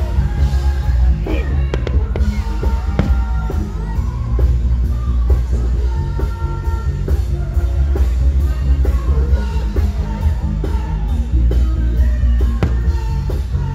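Loud music with a heavy bass beat, drums and singing.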